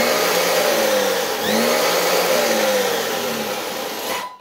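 ARRMA Mojave 4S RC truck's brushless motor and drivetrain revving with the wheels spinning in the air. A whine rises and falls twice over a loud rushing noise, then cuts off suddenly near the end.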